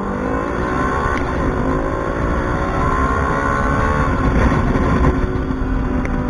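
Motor vehicle engine accelerating, its pitch climbing steadily for about four seconds, then dropping as it shifts gear and pulling on at a lower pitch.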